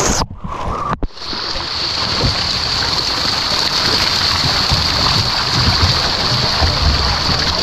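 Dense, continuous splashing of hundreds of milkfish thrashing at the surface, crowded together in a harvest net. The sound drops out briefly near the start, then carries on steadily.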